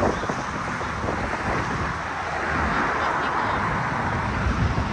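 Road traffic noise of passing cars, steady throughout, with wind blowing on the microphone.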